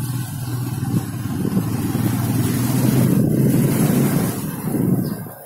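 Motorcycle engine running as it is ridden, a steady low hum with wind rumbling on the microphone; it grows louder through the middle and eases off near the end.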